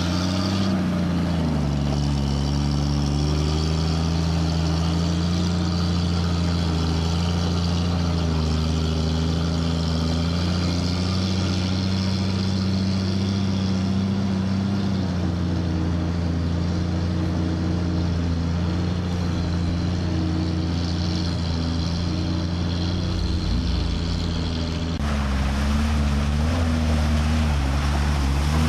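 Off-road vehicle engines running steadily, their pitch rising and falling a little, with a shift about halfway through and an abrupt change in the sound near the end.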